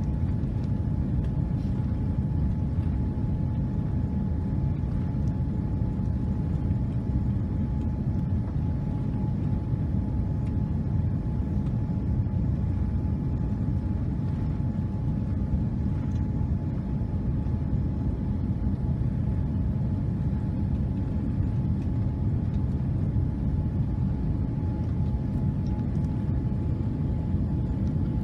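Cabin noise of a Boeing 787-9 on final approach: a steady rumble of engines and airflow heard from inside the passenger cabin, with a faint steady whine over it.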